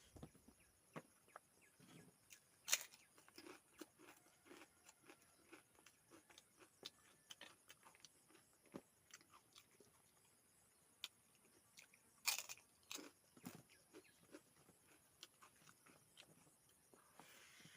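A person chewing and crunching food close to the microphone: irregular crisp clicks and smacks, with two louder crunching bites about 3 seconds in and about 12 seconds in.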